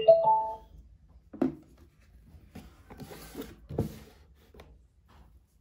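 Short chime of two stepped tones from the DIY Bluetooth speaker's amplifier board, its pairing sound as the phone connects. A few light knocks and rubs follow as the foam-board speaker cabinet is handled.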